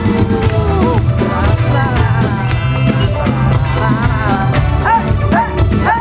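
Upbeat music with a steady drum beat, with a rising swoosh about two seconds in.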